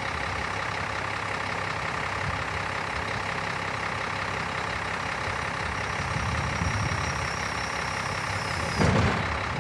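Scania 380 hooklift truck's diesel engine running steadily while the hook arm hydraulics lower the container onto the frame. A faint high whine comes in over the last few seconds, then a heavy thump near the end as the container settles down onto the frame.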